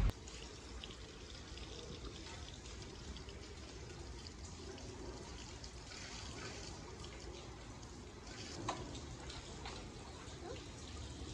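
Rain falling and dripping onto wet concrete: a faint, steady patter with scattered drips and one slightly louder drip about eight and a half seconds in.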